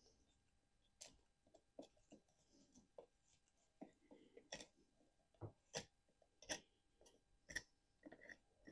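Faint, irregular clicks and small taps of hand tools working on the wood of a privet bonsai, about a dozen spread unevenly over several seconds.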